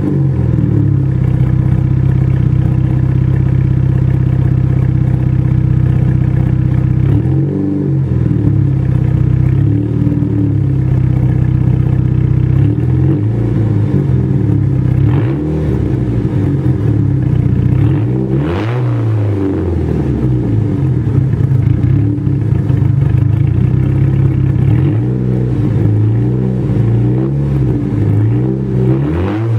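1996 Dodge Neon's rebuilt 2.0-litre four-cylinder idling through a full SRT-4 exhaust (high-flow catalytic converter, resonator, dual 4-inch tips), heard at the tailpipes. The throttle is blipped several times, so the loud exhaust note rises and falls back to idle, more often near the end.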